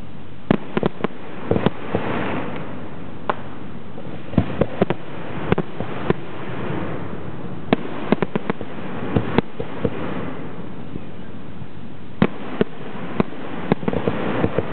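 Zambelli aerial fireworks display: shells bursting in sharp bangs and pops at irregular intervals, in clusters, over a rushing wash of crackle that swells and fades between them.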